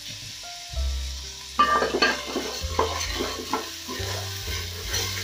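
Wooden spoon stirring raw rice grains through hot oil in a stainless steel pot, a scratchy scraping and light sizzling in quick uneven strokes. It starts about a second and a half in.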